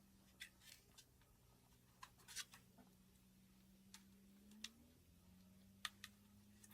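Near silence: a faint steady low hum with scattered small clicks and taps, about a dozen over several seconds.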